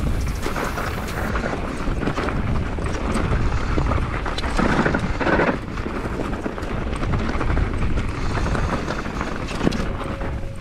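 Downhill mountain bike ridden fast down a rough, dusty trail, heard through a GoPro's microphone: constant wind buffeting, with tyres rumbling and the bike rattling and knocking over the bumps.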